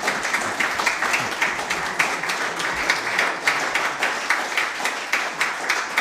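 Audience applauding, with many hands clapping at once in a dense, steady patter.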